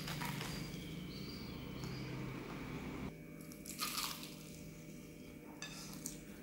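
Crispy fried chicken being bitten and chewed, its batter coating crunching in a few short bursts, the loudest about four seconds in.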